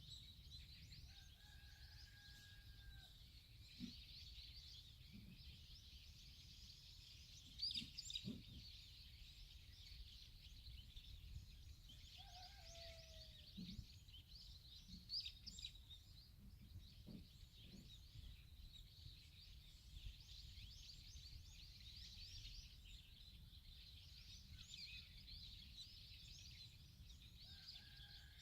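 Faint countryside birdsong: many small birds chirping and twittering without pause, with a couple of longer held calls near the start and the end and a falling call about halfway through.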